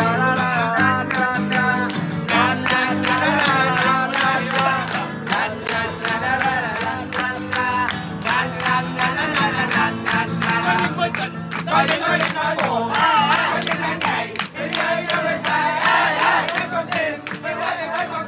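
A group singing to guitar music, clapping along in time.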